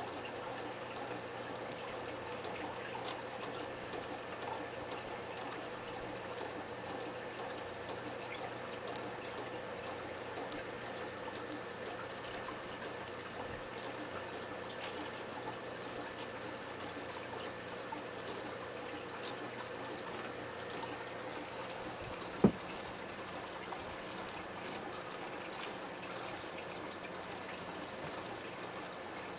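Aquarium water trickling and bubbling steadily from the tank's filter and air stream, with a faint steady hum. A single sharp knock about three-quarters of the way through.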